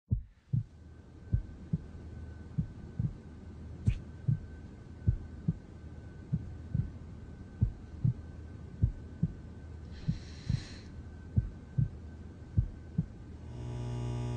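Slow heartbeat sound effect: paired low thumps, lub-dub, about every second and a quarter, over a faint steady high tone. A brief hiss comes about ten seconds in, and a held guitar chord swells in near the end.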